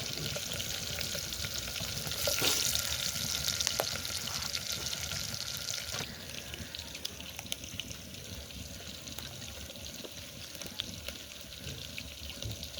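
Food sizzling in a cooking pot: a steady hiss with small scattered crackles, louder for a few seconds soon after the start, then settling lower.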